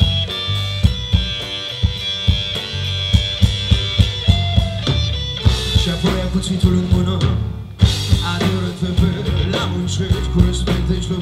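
A rock band playing live: electric guitars, bass guitar and drum kit with a steady beat. The sound thickens about halfway, stops for a moment about three-quarters through, then the full band comes back in.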